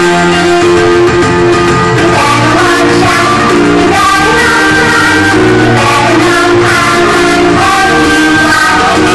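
Loud music with singing over guitar, running steadily without a break.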